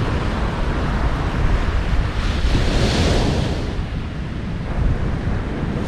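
Ocean surf breaking and washing up on a sandy beach, with wind rumbling on the microphone. A wave's wash swells to a louder hiss about three seconds in, then fades.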